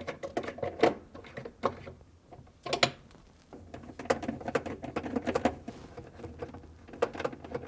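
Irregular light clicks and short rattles of a driver and plastic parts as the two screws holding a refrigerator ice maker are driven in.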